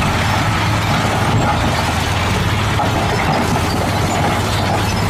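Dump truck's diesel engine running while its raised bed tips out a load of rocks and dirt: a steady low drone under a constant rushing noise.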